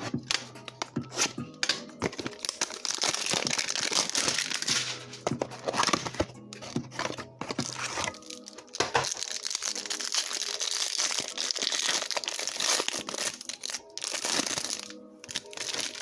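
Plastic wrapping of a trading card box being torn open and crinkled, in two long spells of crackling, with steady background music underneath.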